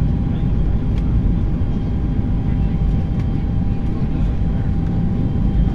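Airbus A320 cabin noise in flight: a loud, steady rumble of engines and airflow with a thin steady whine running through it and a few faint clicks.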